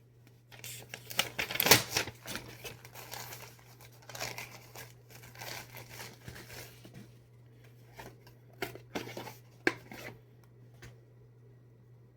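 Mail packaging being torn and cut open by hand, with crinkling and rustling: dense for the first few seconds, then a few sharp handling sounds before it goes quiet near the end.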